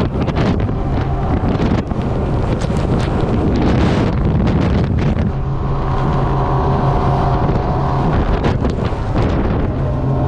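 Outboard motor running hard as a rigid inflatable boat planes at speed, with the hull slapping through chop and spray and wind buffeting the microphone.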